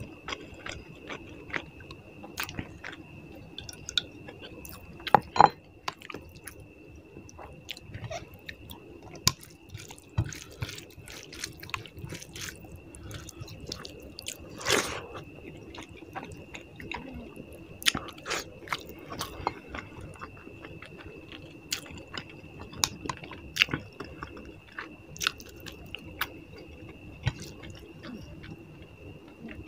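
A person chewing and eating puti fish curry with rice close to the microphone: irregular wet mouth sounds, smacks and clicks, a few louder ones about 5 and 15 seconds in. A faint steady high-pitched whine runs underneath.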